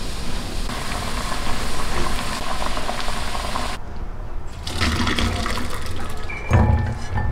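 Water bubbling in a pot as lotus seeds, lily bulbs and walnuts are blanched. About four seconds in, the hot water is poured off through a wire-mesh strainer into a stainless steel sink, gushing and splashing, loudest near the end.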